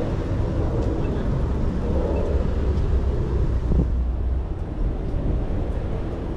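Steady low rumble of wind and road noise picked up from a moving bicycle, with a brief knock just before the middle.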